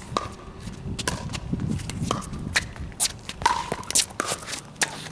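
A pickleball rally: paddles hitting the hard plastic ball with sharp pocks, a hit every second or so, among other clicks and shoe scuffs on the court.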